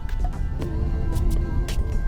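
Background music with held tones and light percussive ticks.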